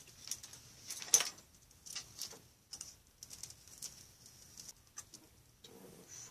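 Hobby knife blade scratching and slicing through cellophane along the edge of a foamboard frame on a cutting mat: a run of short, irregular scratchy strokes, the sharpest about a second in.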